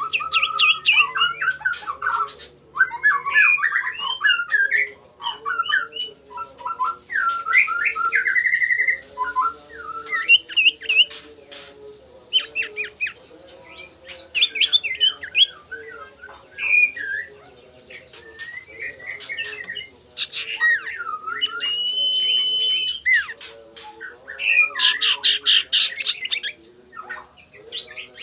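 Iora (cipoh) giving bouts of varied chattering, squawking and sliding whistled calls, a challenging call aimed at a rival, including one held whistle a little past the middle.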